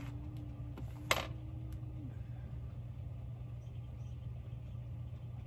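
A steady low mechanical hum in the room, with a thin steady tone for the first two seconds and a single sharp click about a second in.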